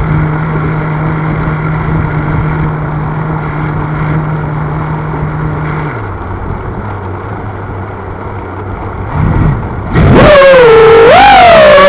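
FPV miniquad's brushless motors spinning at idle after arming, a steady hum that drops lower about six seconds in. About ten seconds in the throttle comes up for takeoff and the motor whine jumps much louder, wavering up and down in pitch.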